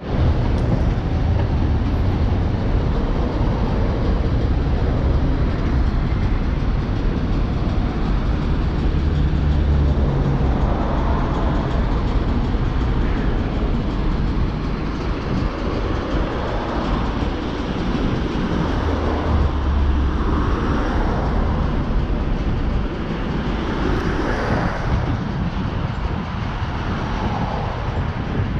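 A freight train of tank wagons, hauled by a ChME3 diesel-electric shunting locomotive, rolling past on the rails: a loud, continuous rumble of wheels and running gear, with some swells in the low rumble and brighter swells in the middle of the pass.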